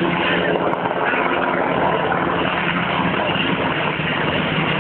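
Military helicopter flying overhead, its rotor and turbine engine making a steady, loud drone.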